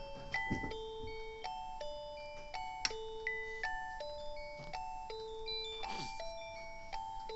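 Background music: a slow, chiming, bell-like melody of held notes over a steady high note, with a few brief soft noises about half a second in and near six seconds.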